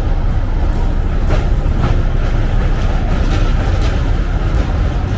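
2 ft 6 in narrow-gauge train crossing a bridge at low speed: a steady low rumble broken by occasional sharp clacks from the wheels and coaches.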